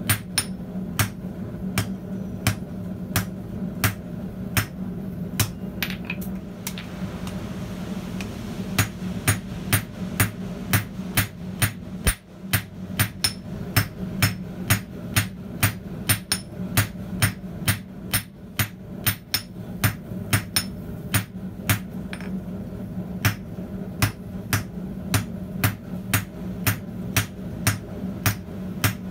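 Hand hammer blows on a red-hot high-tensile steel bolt lying on a steel anvil, drawing its end down to a taper. The blows come at about two a second, with a short let-up about six seconds in, over a steady low hum.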